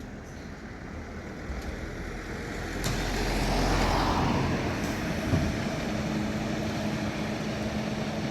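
Volvo fire engine's diesel engine pulling away, getting louder to a peak about three to four seconds in, then settling into a steady low engine hum.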